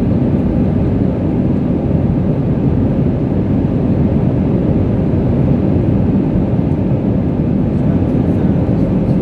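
Steady engine and airflow noise inside an airliner cabin in flight, an even low rumble.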